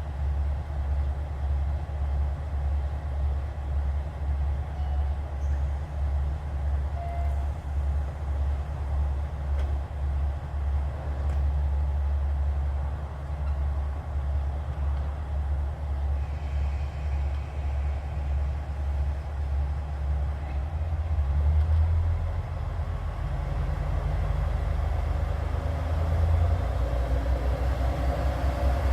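KiHa 47 diesel railcar's engine idling with a steady, pulsing low throb. The note shifts about two-thirds of the way through and rises and grows louder near the end, as the engine is throttled up for departure.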